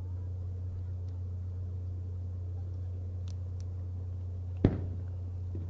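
One sharp firework bang a little over four seconds in, with a short rolling echo, over a steady low hum.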